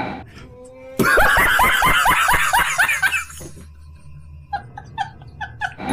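A man laughing hard in a fast run of ha-ha pulses, then a softer run of short chuckles near the end.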